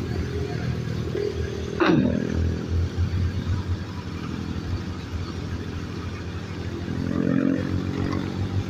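Motorcycle engine running steadily while riding, over a constant hiss of rain and wet tyres on the road. A brief sweep drops sharply in pitch about two seconds in, and another engine tone swells near seven seconds.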